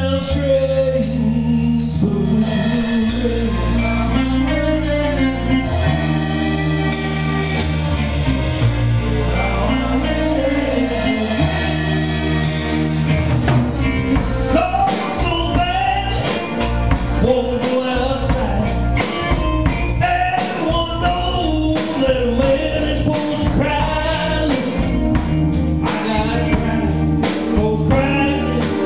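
Male singer performing a slow soul ballad over held bass notes and guitar; drums come in steadily from about halfway through.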